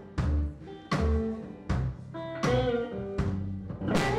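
Background music with a steady beat: plucked string notes, each struck sharply and fading, about one every three-quarters of a second.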